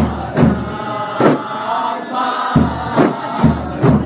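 Kompang troupe playing: hand-struck Malay kompang frame drums beat a repeating rhythm of sharp slaps, with a large bass drum booming on some of the strokes, under a group of voices chanting together.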